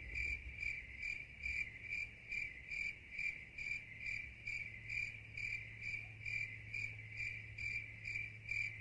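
Crickets chirping in a steady, even rhythm, about two or three chirps a second.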